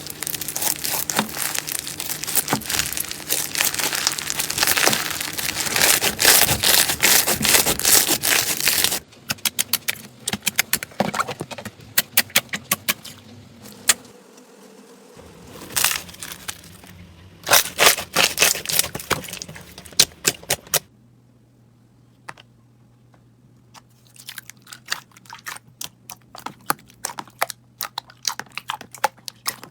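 Slime squeezed and poked by hand, making crackling, popping clicks. The clicks are dense for about the first nine seconds and sparser after that, with the sound changing abruptly twice as one clip gives way to the next.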